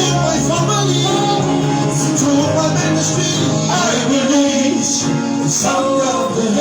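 Slow worship music: sustained chords with a voice singing a melodic line over them.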